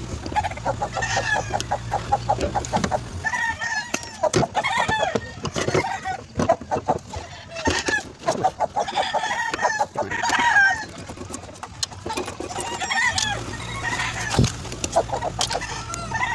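Chickens clucking and calling repeatedly, with a steady low hum underneath at the start and again near the end.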